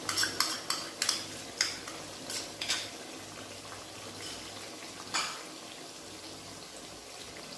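Fried onions and spice paste sizzling steadily in hot oil in a pan, with a run of sharp clinks and taps of a spoon on the cookware in the first few seconds and one more about five seconds in.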